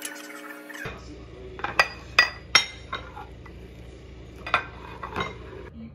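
Background music that cuts off about a second in, then sharp clinks of utensils against dishes: four quick ones, then two more a couple of seconds later, while ice-pop bags are filled from a mixing bowl.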